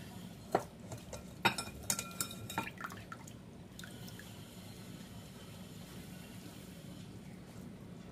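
Wet soaked poha (flattened rice) being tipped from a glass bowl into a metal mesh strainer: a few light knocks and clinks of the glass bowl against the strainer in the first three seconds. Then a quiet, steady trickle and drip of the washing water draining through the mesh.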